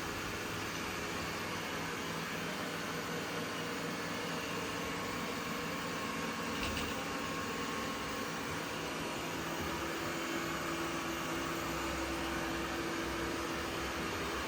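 ECOVACS DEEBOT N8 PRO+ robot vacuum running steadily, its suction fan and brushes making an even whir with a faint hum.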